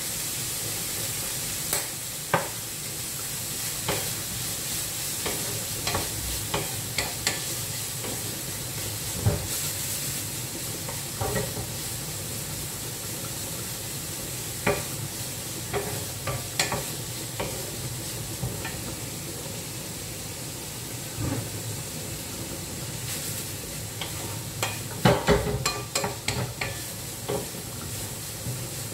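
Fried rice sizzling in a wok while a wooden spatula stirs and turns it, with irregular knocks of the spatula against the pan and a quick run of knocks near the end.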